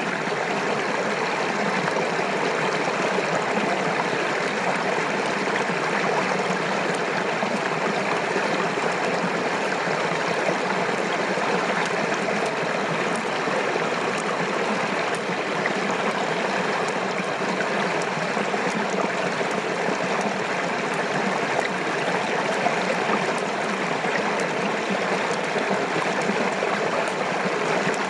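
Water flowing steadily, an even, unbroken sound.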